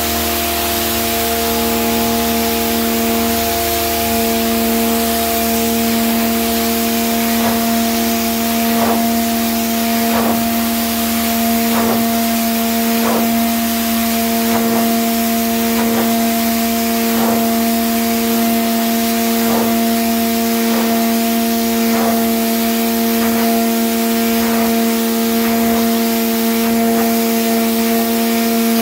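Pressure washer running steadily: the motor and pump hum at a constant pitch under the hiss of the high-pressure water jet blasting black algae off concrete. Faint clicks repeat about every second and a half through the later part.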